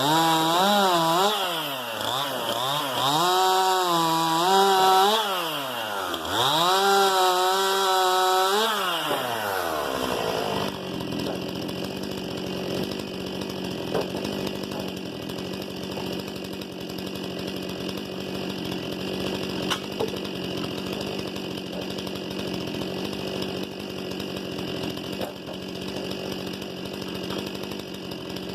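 STIHL MS 261 C-M two-stroke chainsaw with its engine speed rising and falling several times under throttle. About ten seconds in it drops back to a steady idle and stays there.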